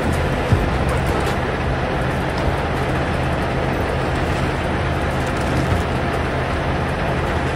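Tanker truck's diesel engine running steadily at idle, with a few light knocks as the loading hose is handled.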